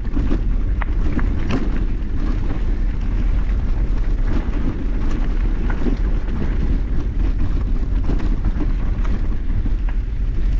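Mountain bike riding over rough rock: steady wind and rumble on the microphone, with scattered sharp clacks and rattles as the tyres and bike strike the rocks.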